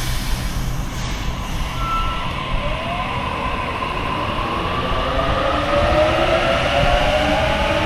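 Sydney Trains electric suburban train approaching, its rumble growing slightly louder, with several whining tones that slowly fall in pitch from about two seconds in.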